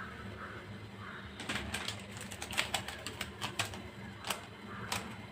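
Pan of water heating on the stove, ticking and crackling faintly and irregularly as small bubbles begin to form before the boil.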